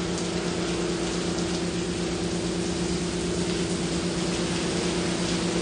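Steady heavy rain, with a constant low hum underneath.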